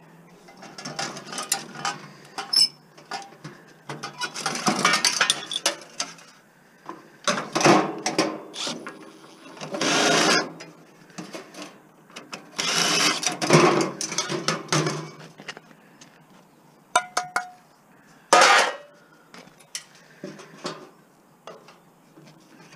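Stainless steel barbecue being taken apart for scrap: bursts of metal parts clattering and scraping, a second or two each, with sharp clicks between them.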